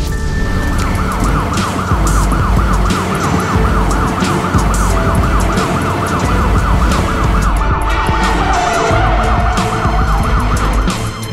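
Police car siren on a fast yelp, rising and falling about four times a second over background music with a steady beat; the siren stops near the end.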